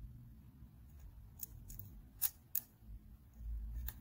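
Small sharp clicks of a fine screwdriver tip tapping against the metal and plastic parts inside an opened Canon camera body, about five in all, the two loudest about halfway through. A low handling rumble swells near the end.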